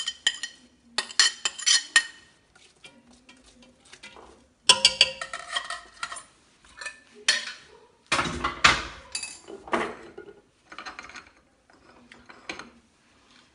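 Kitchen utensils and a bowl clinking, knocking and scraping against an aluminium pressure cooker as chopped onion is scraped into it, in irregular clusters of sharp clinks with short pauses between them.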